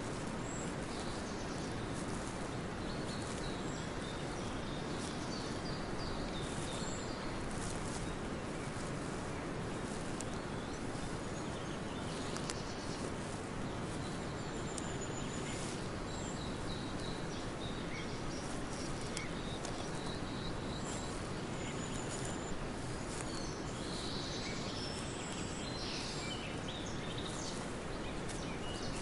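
Forest ambience: a steady hiss of background noise with small birds chirping and tweeting here and there, the chirps busiest a few seconds before the end.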